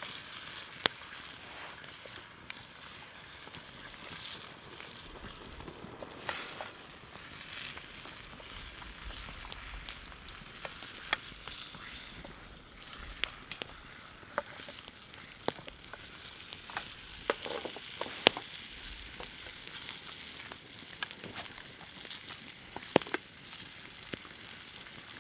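Walleye frying in hot oil in a pan, a steady sizzle with scattered sharp pops and crackles.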